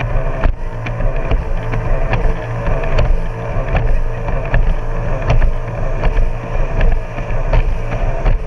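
Jet ski engine running steadily, with frequent short knocks over it, typical of the hull slapping the water.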